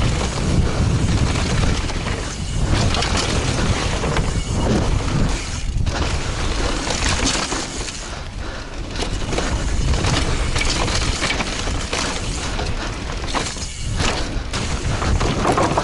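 Mountain bike descending a loose dirt trail at speed, recorded on an action camera: wind buffeting the microphone, tyres crunching over dirt and rocks, and the bike and camera mount rattling and knocking over bumps throughout.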